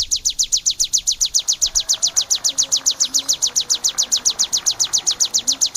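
Ciblek, a prinia, singing a fast, even trill of high, sharp chips, about eight a second.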